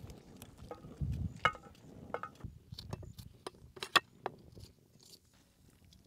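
Small knife cutting through a crisp red bell pepper held in the hand, giving soft crunching cuts, with irregular sharp clicks that are loudest about one and a half and four seconds in. The activity tapers off in the last second or so.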